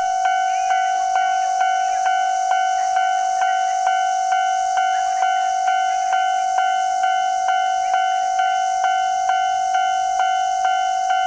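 Railway level-crossing warning bell ringing steadily at about two strikes a second, each strike over a held ringing tone, as a train approaches, with a steady high hiss behind it.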